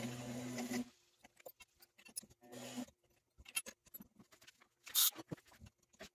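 Cue lathe motor humming steadily, switched off about a second in and run again briefly a little later. Then scattered light clicks and knocks from the lathe's carriage and hand tools being handled, with one louder, sharper noise about five seconds in.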